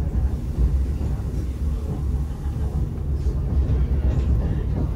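Steady low rumble of a Rigi rack railway train running as it climbs the mountain.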